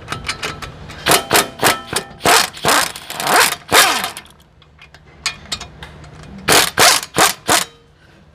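Repeated sharp metal knocks on a rusted wheel hub as it is worked loose. There is a run of about seven knocks over roughly three seconds, then four more in quick succession near the end, over a low steady hum.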